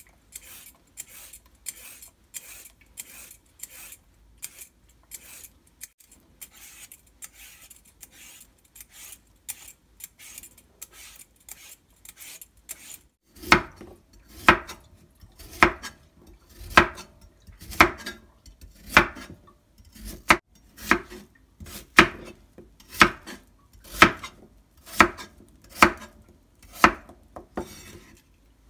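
A hand vegetable peeler scrapes a carrot and a potato in quick light strokes, about two or three a second. About halfway through, a kitchen knife starts cutting the carrot and then the potato on a wooden cutting board, one louder knock roughly every second.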